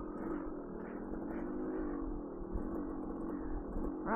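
Trail motorcycle engine running steadily at low revs, a low even drone.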